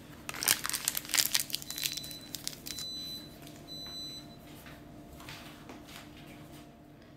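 A small packet crinkling and rustling in quick sharp crackles for the first three seconds, then only a few fainter rustles.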